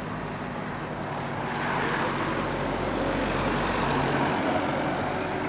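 Car driving past close by behind the riders: a steady engine hum with tyre noise that swells from about a second and a half in and eases off near the end.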